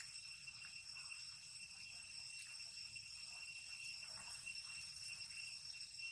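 Steady high-pitched insect chorus with several unbroken ringing tones, and faint scattered clicks underneath.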